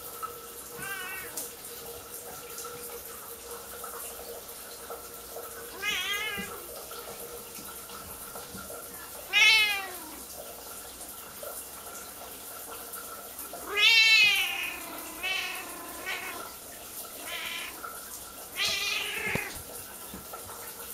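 Siamese cat meowing loudly, about eight separate meows, some long and some short, the loudest about halfway through and again a few seconds later, over the steady hiss of a running shower. The owner says these are the cries of a cat that dislikes the shower, louder when she is petted while it runs.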